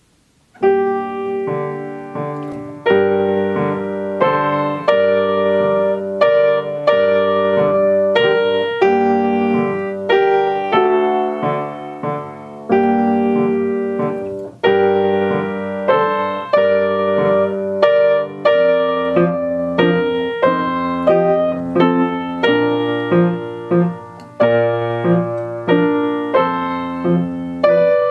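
Grand piano played solo: the piece begins about half a second in, with chords struck roughly once a second and left ringing.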